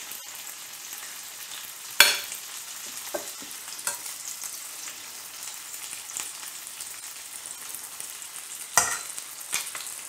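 Chicken thighs frying skin-side down in hot fat in a pan: a steady sizzling hiss. A few sharp taps or clicks cut through it, the loudest about two seconds in and another near the end.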